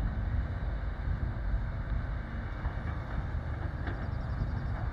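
Mercedes-Benz Arocs dump truck's diesel engine running as the truck rolls down a gravel haul road, a steady low rumble, with wind buffeting the microphone.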